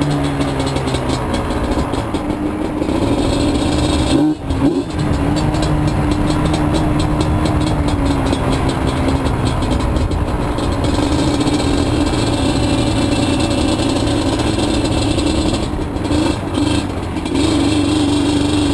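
Yamaha Banshee ATV's twin-cylinder two-stroke engine running under way on a single 2-into-1 carburettor conversion being tuned. It holds a steady throttle, with a brief let-off about four seconds in and a couple more near the end.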